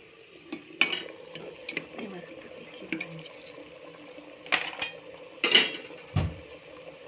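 Steel tin of batter being set down inside a pressure cooker: scattered metal clinks and knocks, the loudest two about four and a half and five and a half seconds in, followed by a dull knock.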